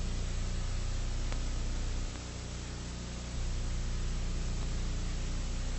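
Steady hiss with a low electrical hum underneath, the noise floor of an old videotape transfer; the hum weakens for about a second around two seconds in.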